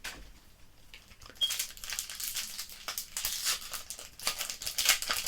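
Plastic wrapper of a trading-card booster pack crinkling as it is handled and torn open, starting about a second and a half in.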